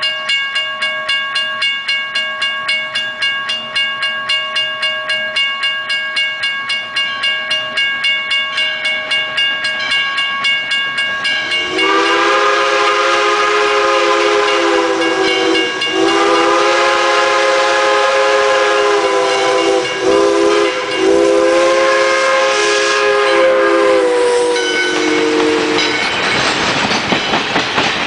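A grade-crossing signal bell rings rapidly, about three strokes a second. About twelve seconds in, an approaching steam locomotive sounds its chime whistle in the long-long-short-long grade-crossing signal, and near the end the passenger coaches roll by with a clickety-clack of wheels over rail joints.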